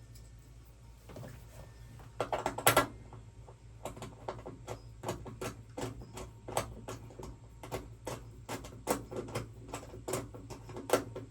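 Small metal hardware and hand tools being worked: a quick loud rattle about two seconds in, then a steady run of light clicks about three a second.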